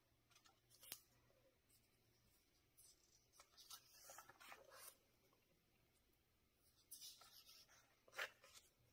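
Pages of a large paperback textbook being turned by hand, faint paper rustles and swishes. There is a short crisp flick about a second in, longer rustling through the middle, and the loudest page turn near the end.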